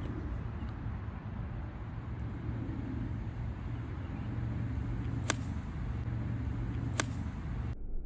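Steady low outdoor rumble, with two sharp clicks about five and seven seconds in. The sound changes abruptly shortly before the end.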